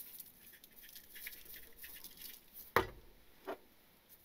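Seasoning shaken from shakers onto a burger patty on paper, grains pattering faintly. A sharp knock comes a little under three seconds in, as a shaker is set down on the wooden board, and a lighter knock follows about half a second later.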